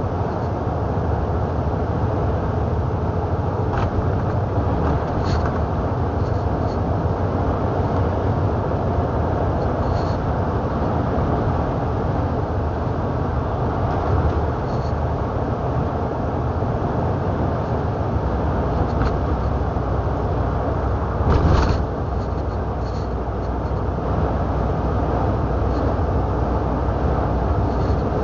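Steady engine and road noise of a truck under way, heard from inside the cab, with one brief louder knock about three quarters of the way through.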